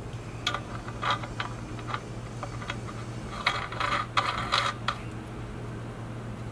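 Threaded half-inch metal pipe fittings being screwed together by hand: a string of metallic clicks and short scraping rattles, busiest between about three and a half and five seconds in. A steady low hum runs underneath.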